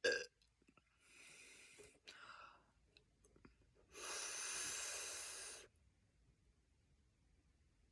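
A man gives a short, loud belch right at the start after chugging a Coke. He then breathes heavily, ending with one long, hissing exhale about four seconds in.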